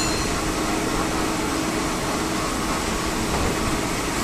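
Steady whirring machinery noise, an even hum with no separate knocks or cuts.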